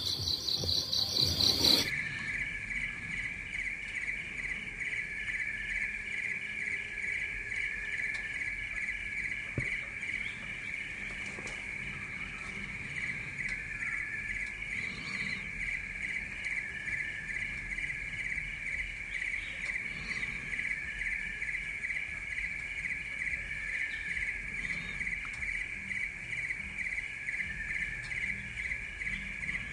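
Steady chorus of insects, a finely pulsing high trill. For about the first two seconds it is louder and higher-pitched.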